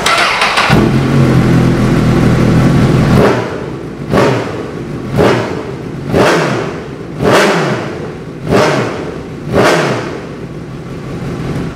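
Honda CB1000R's inline-four engine through an aftermarket LeoVince GP exhaust, revved up and held high for about three seconds, then blipped six times in a row, each rev rising and dropping back to idle. Soft at low revs, it screams at high rpm, like a MotoGP bike.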